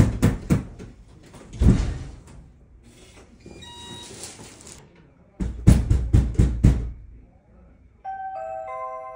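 Knocking on a door: a quick run of raps at the start and a longer run of about six raps a little past the middle. Between them come a thud and the short beeps and whir of a digital keypad door lock. Near the end a steady electronic doorbell chime starts.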